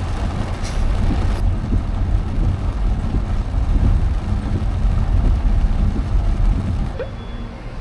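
Car cabin noise while driving on a wet road in rain: a steady low rumble of engine and tyres, with a hiss of spray and rain on the windscreen, getting quieter near the end.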